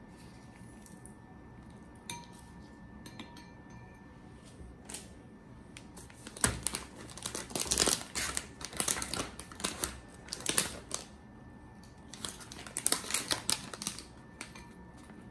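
Hands handling kitchen things: a plastic measuring spoon and a ceramic bowl, among others. There are a few single clicks, then two bouts of quick taps, clicks and scrapes, the first about midway and the second near the end.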